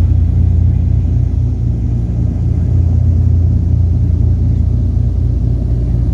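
Douglas DC-3's piston radial engines running steadily, a loud, even low drone heard from inside the cabin.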